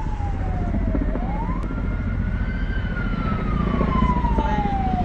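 A wailing siren, its pitch sliding slowly down, sweeping quickly back up about a second in, then sliding slowly down again, over a steady low rumble.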